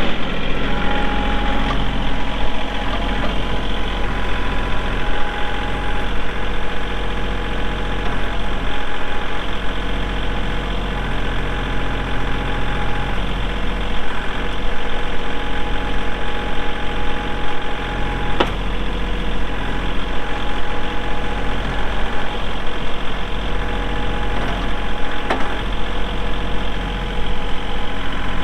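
Kubota L3301 tractor's three-cylinder diesel engine running steadily. There are two brief clicks, one about two-thirds of the way through and one near the end.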